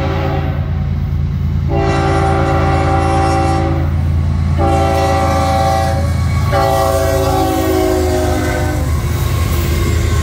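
Florida East Coast Railway freight locomotive sounding its multi-chime air horn in a series of blasts for a grade crossing, over the low rumble of the diesel engine and wheels on the rails. The last blast sags slightly in pitch as the locomotive passes. After it the train's cars keep rumbling by.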